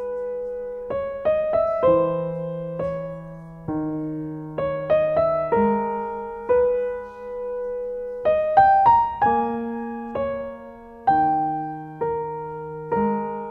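Background piano music: a simple melody of single struck notes, each dying away, over lower held bass notes.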